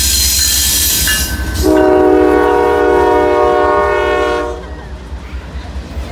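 Norfolk Southern diesel freight train passing close by, a steady low rumble of locomotive and wheels on the rails. About a second and a half in, the locomotive's horn sounds one long chord, stopping about three seconds later.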